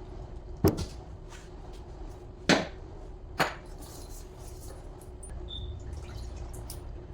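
Three sharp knocks of hard objects striking, a second or two apart, over a faint steady hum.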